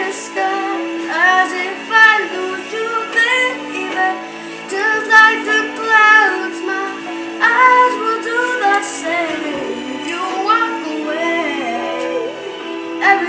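A female voice singing over a music accompaniment, the melody bending and gliding in runs with no clear words, over steady held notes from the backing.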